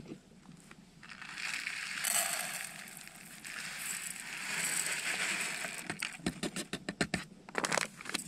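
Dry food pouring out of a crinkly foil-lined meal pouch into a metal camping pot, the packet rustling. Near the end comes a quick run of taps and knocks.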